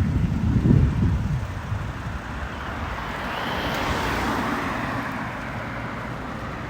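A vehicle passing on a road outdoors, a broad rushing hiss that swells near the middle and slowly fades, with wind rumbling on the microphone at the start.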